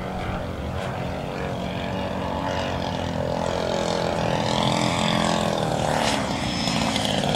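The 50cc CRRC GF50i single-cylinder two-stroke gasoline engine of a giant-scale RC model plane running in flight. Its engine note rises and then falls in pitch.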